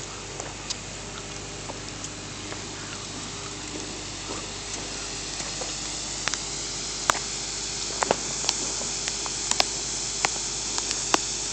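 Water spraying under pressure from a broken water line: a steady hiss that slowly grows a little louder, with a scattering of sharp clicks from about halfway on.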